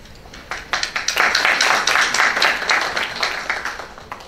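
Audience applauding: many hands clapping that swell up about half a second in and die away near the end.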